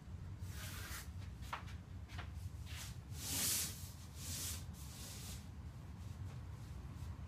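A line being drawn on paper along a straightedge: a few short hissing, rubbing strokes, the loudest about three and a half seconds in, with a couple of faint ticks, over a steady low hum.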